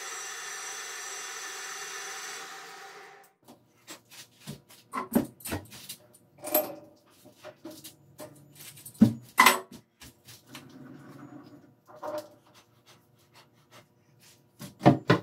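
A metal lathe running and winding down to a stop about three seconds in. Then come scattered sharp metal clinks and knocks as the chuck and the finished steel pulley are handled, with several louder knocks near the end.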